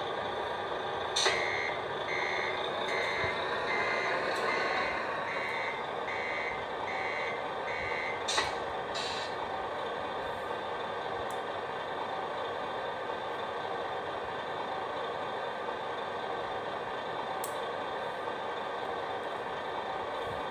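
Servonaut sound module in a 1/14 scale RC Volvo FH16 playing a steady diesel truck engine sound through the model's speaker. About a second in, with a sharp click, a reversing beeper starts and beeps about eight times, evenly spaced, as the truck backs up. It stops with another click, and the engine sound carries on alone.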